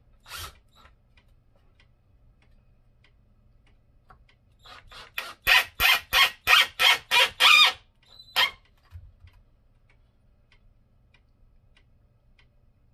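Cordless drill/driver driving a screw into a pine post in short, evenly spaced bursts, about three a second for some three seconds, with a single burst near the start and one more just after the run.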